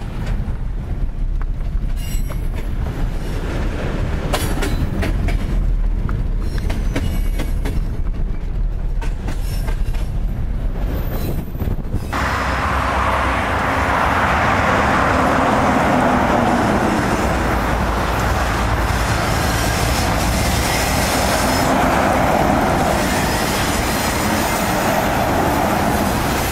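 Road rumble and wind noise from inside a car driving alongside a freight train. About twelve seconds in, this gives way to a diesel-hauled freight train of hopper wagons passing close by: a steady, loud rolling roar of locomotives and steel wheels on rail.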